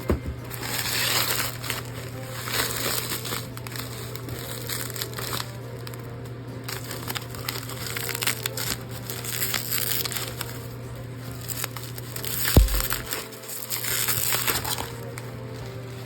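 Crinkling and rustling from something being handled, in repeated spells, with one dull thump about twelve and a half seconds in.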